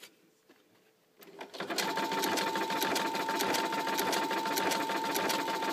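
Brother NQ900 computerised sewing machine starting up about a second and a half in and running steadily, sewing its sideways stitch: a steady motor whine with rapid, even needle ticks.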